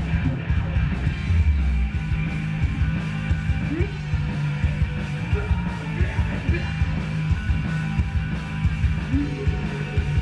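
Loud rock music with a fast, driving drum beat and distorted guitar.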